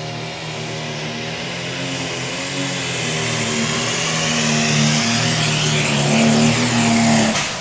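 Turbocharged diesel engine of a John Deere Pro Stock pulling tractor running at full throttle under heavy load as it drags the weight-transfer sled down the track, growing steadily louder as it comes closer. The sound cuts off suddenly near the end.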